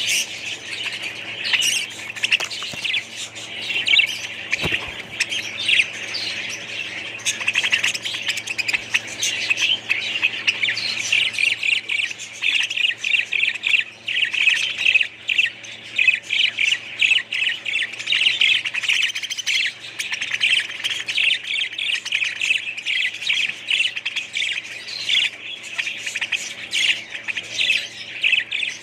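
Many small parrots chirping and squawking at once, a dense, unbroken chatter of overlapping high calls.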